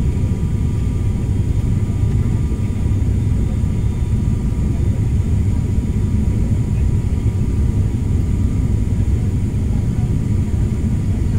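Steady drone of an airliner's engines and rushing air heard inside the passenger cabin on the approach to landing, heavy and low, with a few faint steady high-pitched tones over it.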